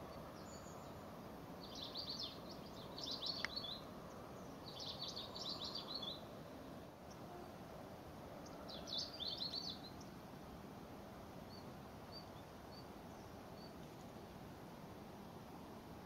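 A small songbird giving four short, rapid high trills in the first ten seconds, then a few faint single high chips, over a steady outdoor hiss.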